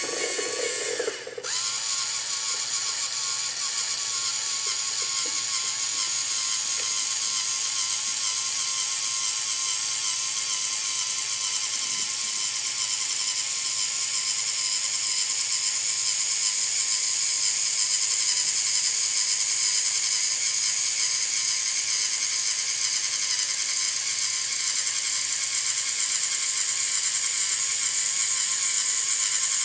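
LEGO Mindstorms NXT servo motors and plastic gear trains whirring steadily as the stair-climbing robot lifts its front track unit. There is a brief break about a second in.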